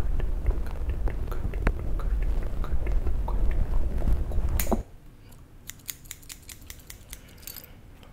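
Small scissors clicking and snipping close to the microphone. For the first five seconds a loud low rumble runs under them, and it cuts off sharply. After that the snips and clicks stand alone, soft and crisp.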